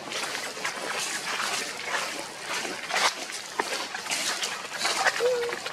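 Dry leaf litter rustling and crackling underfoot, with many small irregular crunches. A brief squeak at a steady pitch sounds near the end.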